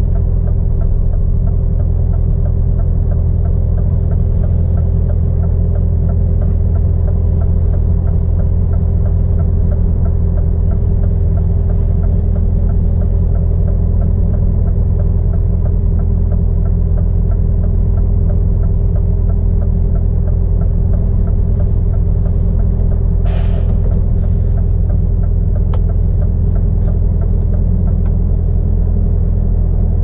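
Scania R450's 13-litre inline-six diesel idling steadily, heard from inside the cab. A single sharp click comes late on.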